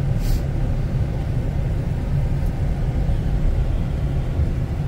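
Steady low rumble of engine and tyre noise inside a moving truck's cabin on a wet road, with a brief hiss about a third of a second in.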